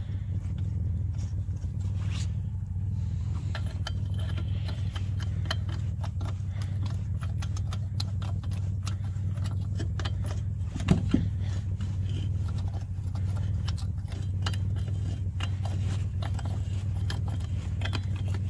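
Rusty lug nuts being spun off wheel studs by hand and a steel socket handled against them, giving many small metallic clicks and clinks, with one sharper knock about eleven seconds in. A steady low hum runs underneath.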